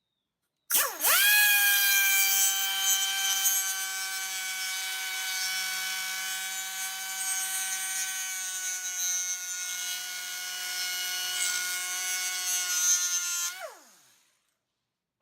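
Die grinder spinning up to a high whine and grinding a score line into a brittle speaker magnet, so the magnet can be snapped along it. The whine sags slightly under load for about thirteen seconds, then the grinder winds down with a falling pitch.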